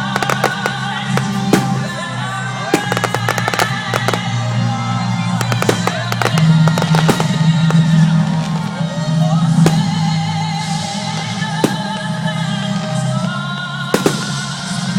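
Fireworks bursting, a run of sharp bangs and crackles coming in clusters, over loud music with a singing voice.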